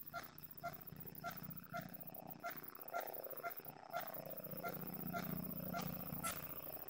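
A low steady hum under a short, pitched tick repeating about twice a second, the hum growing louder in the second half.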